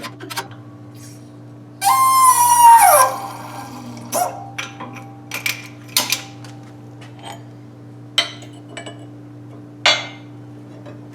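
A wheel bearing being pressed into a Subaru steering knuckle: about two seconds in, a loud squeal is held, then falls in pitch over a steady hum. Several short metallic clicks follow.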